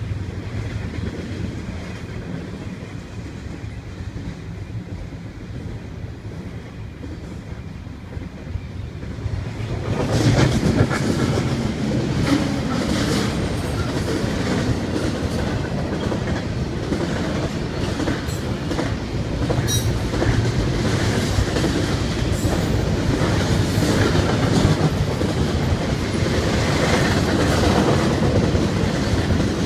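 CSX double-stack intermodal freight train rolling past a grade crossing: a steady rumble with wheels clacking over rail joints. The sound is duller for the first ten seconds or so, then suddenly much louder and clearer.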